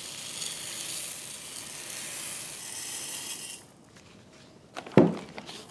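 Aquarium gravel pouring from a glass pitcher into a ceramic bowl: a steady rattling hiss that stops about three and a half seconds in. A single sharp knock comes about a second later.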